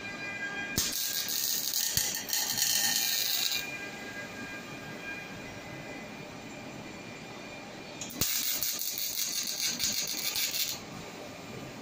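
MIG welding arc from a Fanuc S-430iW welding robot's torch, laying two welds of about three seconds each, one starting about a second in and the other about eight seconds in. Each opens with a sharp crack as the arc strikes, sizzles steadily, then cuts off. A lower steady hum runs in between.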